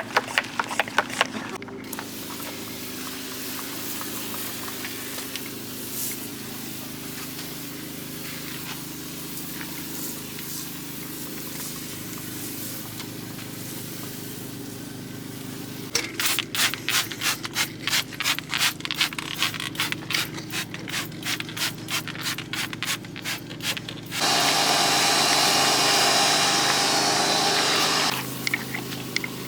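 A pressure washer's motor hums steadily. Past the halfway point comes about eight seconds of rapid scrubbing or scraping strokes, then a loud, steady spray hiss lasting about four seconds that stops abruptly.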